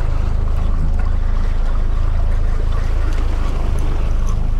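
Outboard motor running steadily at trolling speed, a low even hum, with water rushing past the hull and wake.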